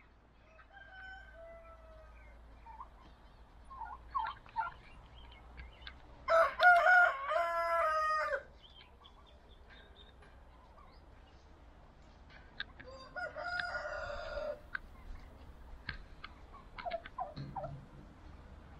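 A rooster crowing twice: a loud full crow about six seconds in and a fainter one about thirteen seconds in, with a few soft poultry calls between.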